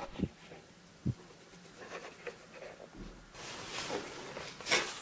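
Faint handling sounds of a clear plastic mixing bowl being lifted off risen yeast dough on a floured wooden board: a soft knock about a second in, then rustling scrapes in the second half, loudest near the end.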